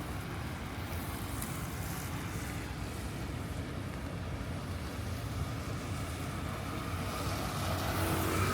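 Road traffic on a rain-wet city street: a steady low rumble of vehicles with a haze of tyre noise, swelling near the end as a vehicle draws closer.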